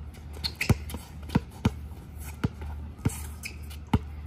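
Basketball being dribbled on an outdoor hard court: six bounces at uneven spacing, as in a one-on-one move against a defender.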